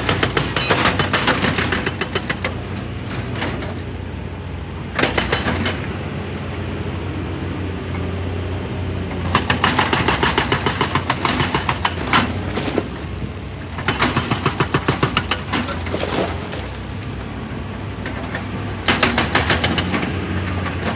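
Excavator-mounted hydraulic rock breaker hammering rock in bursts of rapid, regular blows, five bursts of one to three seconds with short pauses between, over the excavator's diesel engine running steadily.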